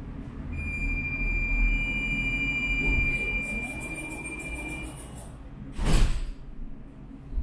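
A tram standing still, with a low rumble and a steady high electrical whine for the first five seconds. About six seconds in there is a short, loud burst of noise.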